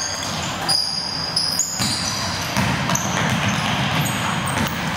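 Basketball game sounds on a hardwood court: the ball bouncing and sneakers squeaking in short high chirps, over a steady hall noise.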